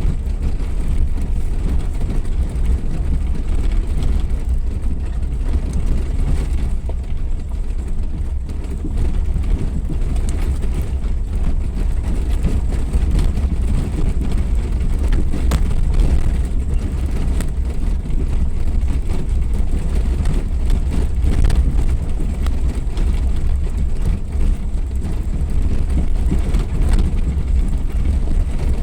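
Suzuki Jimny 4x4 driving off-road: a steady, deep rumble of engine and running gear, with scattered knocks and rattles over rough ground.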